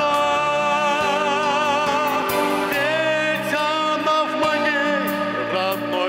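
A man singing a Russian Christian song with vibrato into a handheld microphone, over instrumental accompaniment.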